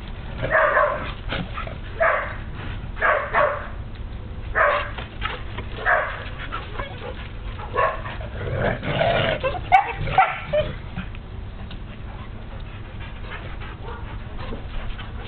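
Dog barking in short calls, about one a second, fading over the last few seconds.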